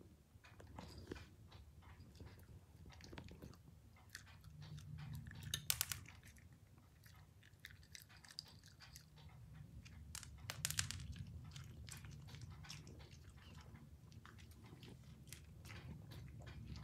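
A dog chewing and crunching, a string of faint irregular crunches with two louder bites about six and eleven seconds in.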